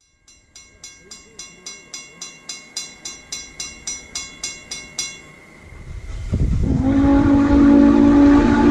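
Railroad crossing bell ringing at about three strokes a second while the crossing gates come down, stopping about five seconds in. A train's rumble then builds and its horn sounds a loud, steady chord near the end.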